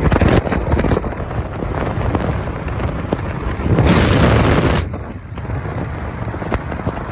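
Wind rushing over a phone microphone held out of a moving car's window, with tyre noise from the wet road underneath. A stronger gust about four seconds in lasts about a second.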